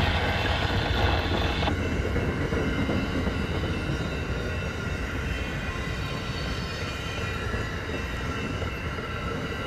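Amtrak stainless-steel passenger cars rolling past on the rails: the steady rumble and rattle of wheels and trucks, easing slowly as the train moves on.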